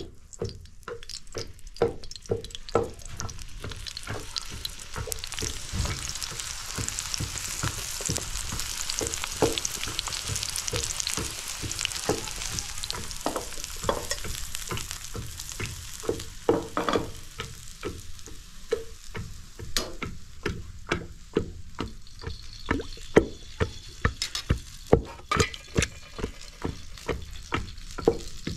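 Eggplant slices frying in hot oil in a pan, sizzling loudest in the first half, with frequent knocks and clicks throughout and a fairly regular run of louder knocks in the second half.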